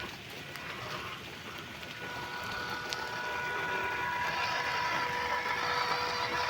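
MN82 RC crawler's small electric motor and drivetrain running, a steady whine over a hiss that gets louder toward the end.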